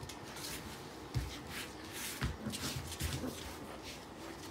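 A puppy and a German Shepherd playing tug of war with a toy on a tiled floor: scuffling, with paws and claws scrabbling on the tiles and a couple of soft thumps about one and two seconds in.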